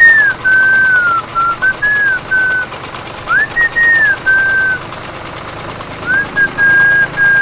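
A person whistling a slow tune in three phrases. The clear notes slide up, hold and fall away.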